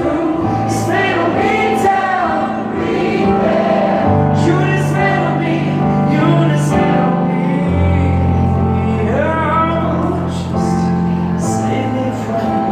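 Live acoustic rock song: voices singing a wordless, choir-like melody over held low instrumental notes that change every second or two.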